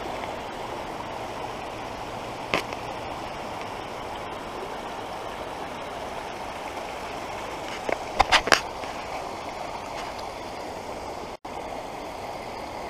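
Steady rush of water running through a beaver dam of piled sticks. A single sharp knock comes about two and a half seconds in, and a quick cluster of louder knocks about eight seconds in.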